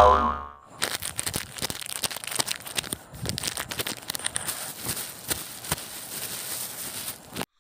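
Cartoon foley: the tail of a springy boing fades out at the start, then a dense run of small irregular crackles and rustles, like movement through dry grass and leaves, which cuts off sharply near the end.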